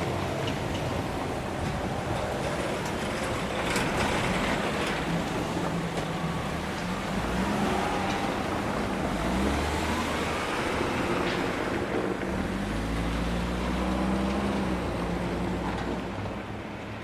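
Road vehicles running past a railway crossing: a steady traffic noise with a low engine hum that shifts in pitch a few times.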